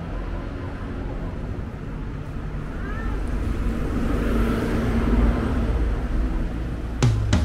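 City street traffic: a steady low motor-vehicle rumble that swells as a vehicle passes around the middle, ending with a couple of sharp clicks.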